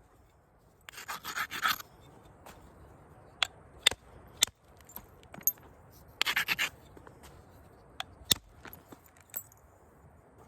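Flintknapping: a stone edge is scraped in two short rasping spells, as when a striking platform is prepared. Several single sharp clicks of the elk bone tool tapping or striking the stone come in between.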